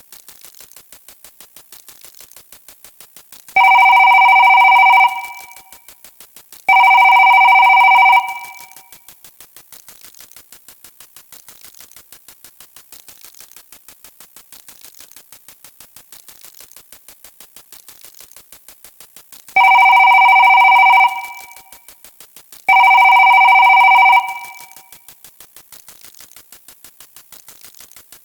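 Electronic ringing tone, like a telephone ring, sounding twice, then twice more after a long gap; each ring lasts about a second and a half. Under it runs a rapid, steady ticking.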